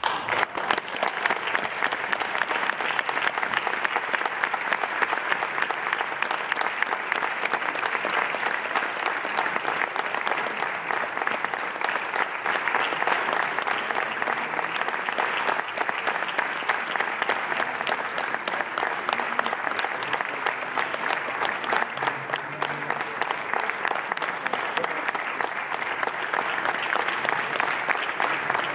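Concert audience applauding at the end of the piece: dense, steady clapping that breaks out all at once from near quiet.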